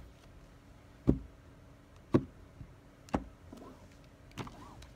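A tarot deck being cut into piles: stacks of cards set down one after another on a cloth-covered table, four sharp taps about a second apart.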